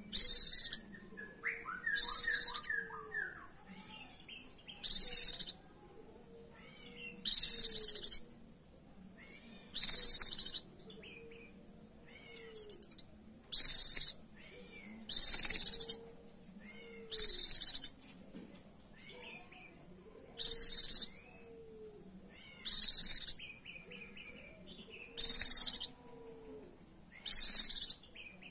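Female white-eye (pleci) giving a short, high call about a dozen times, one every two to three seconds: her call for a male in breeding condition.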